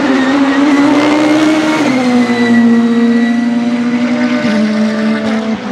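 Audi RS5 DTM race car's turbocharged four-cylinder engine running hard on track, its note stepping down in pitch about two seconds in and then holding steady.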